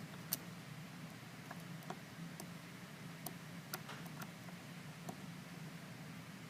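Faint, irregular metallic clicks and ticks of a lock pick working the pins and warding inside a Master Lock 410 plastic-bodied lockout padlock, the pick catching on the warding. A low steady hum runs underneath.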